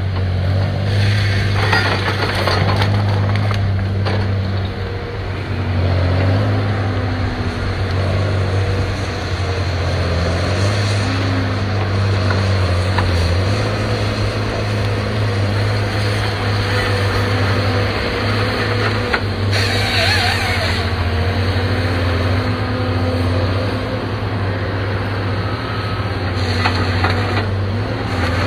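Tigercat 635D grapple skidder's diesel engine running as the machine drives, its pitch shifting up and down with engine speed. There are short bursts of louder rushing noise, around two seconds in, near the middle and near the end.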